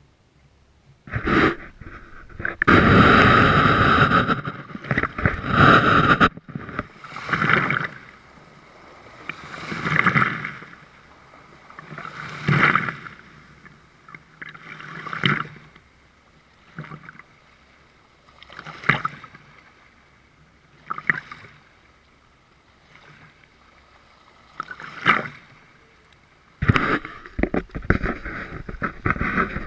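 Small waves washing over a camera at the water's edge: splashing and gurgling, loud for the first few seconds, then rising and falling in separate swells every two to three seconds.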